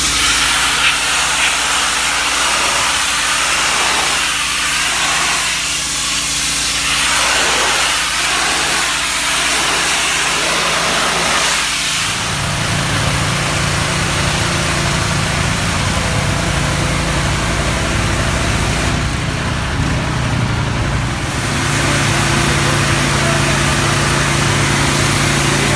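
Pressure washer jet spraying with a steady hiss as it blasts away pigeon droppings, over a steady engine hum that grows much louder about halfway through. The spray lets up for a moment late on.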